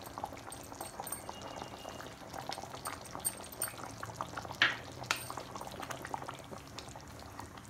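Thick, creamy chicken gravy bubbling in a pan, a steady patter of small pops. About four and a half seconds in, two sharper knocks as a wooden spatula goes into the pan to stir.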